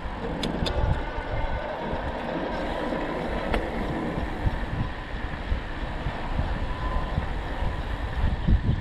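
Riding noise from a bicycle ride: wind buffeting the microphone in low gusts over a steady rolling hiss, with two sharp clicks near the start and another a few seconds later.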